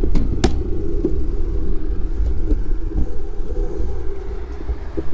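Low wind buffeting and road rumble on a handlebar-mounted GoPro as a road bike rides off, with two sharp clicks within the first half second.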